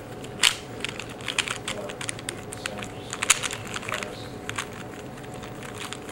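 Plastic 3x3 Rubik's cube being turned quickly by hand: irregular rapid clicks and clacks as the layers turn.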